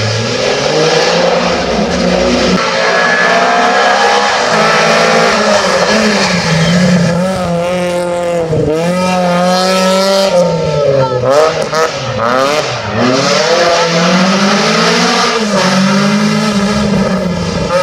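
Rally car engines at full throttle: a car passing, then a Volkswagen Golf Mk2 rally car driven hard through a hairpin, its engine note climbing and dropping again and again with gear changes and throttle lifts.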